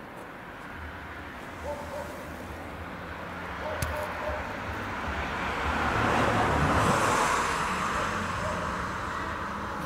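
A car driving past, its engine and tyre noise swelling to a peak about two-thirds of the way in and then fading away.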